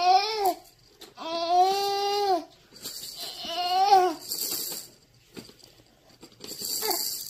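An infant vocalizing: three drawn-out babbling calls in the first half, the middle one the longest and held at a level pitch. Twice later comes a short high hissing rattle.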